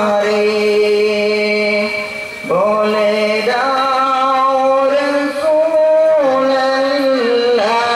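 A male voice singing a gojol, a Bengali Islamic devotional song, in long held, sliding notes over a steady low drone. The phrase breaks off briefly about two seconds in, and the next one begins with a rising slide.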